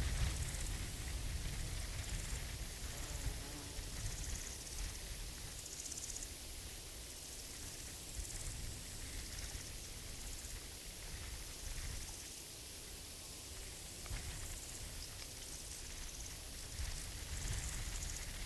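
Forest ambience: crickets or other insects chirping in short high-pitched spells every few seconds over a steady high hiss, with a low rumble of breeze underneath.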